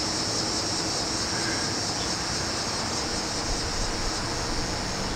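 Steady evening chorus of crickets and other insects, a continuous high trill, over a steady broad rumble of background noise.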